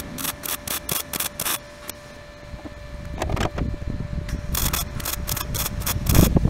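MIG welder stitch-welding fender sheet steel in short bursts of arc, about three a second, with a lull near two seconds in before the bursts start again.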